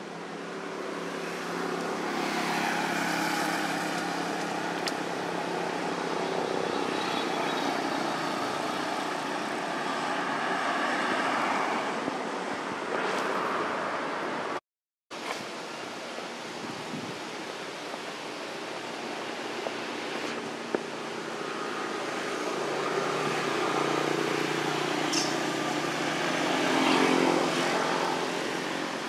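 Outdoor ambience with motor vehicles passing on a nearby road, their engine sound swelling and fading over several seconds. It drops out to silence for about half a second near the middle.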